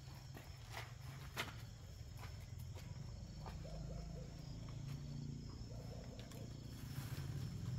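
Scattered footsteps and scuffs with light rustling of dry fronds inside a concrete culvert pipe, over a low steady rumble; one sharper knock about a second and a half in.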